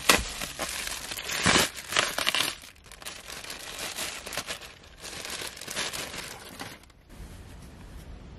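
A plastic bubble mailer being opened and a clear plastic bag handled: loud crinkling and rustling in bursts, dying down about seven seconds in.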